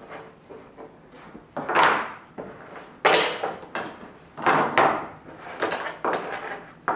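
Thin laser-cut wooden jig pieces being gathered up and set down on a wooden workbench: a series of separate wooden clacks and knocks with quieter shuffling and scraping between them.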